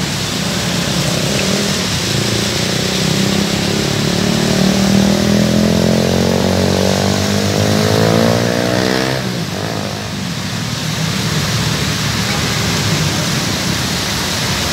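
Steady hiss of heavy rain and traffic on a wet road. From about two seconds in, a vehicle's engine climbs steadily in pitch as it accelerates past, then drops away abruptly a little past the middle.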